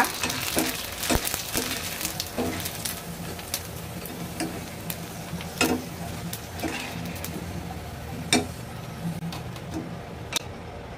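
Fuchka (puri) shells deep-frying in hot oil, a steady sizzle, with a few sharp clicks and taps against the pan scattered through it.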